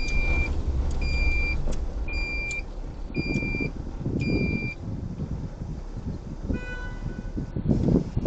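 Five short, high electronic beeps about a second apart as the car slows to a stop. About two seconds later comes a short car-horn toot, all over low engine and road rumble heard from inside the car.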